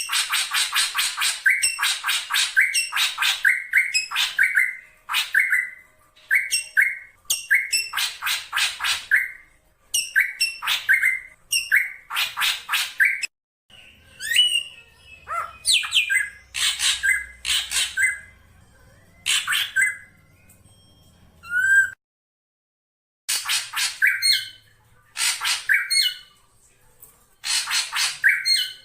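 Black drongo calling: harsh, rasping notes mixed with short whistled notes, repeated in phrases separated by brief pauses. The sound drops out for about a second near 22 s, then the calls resume.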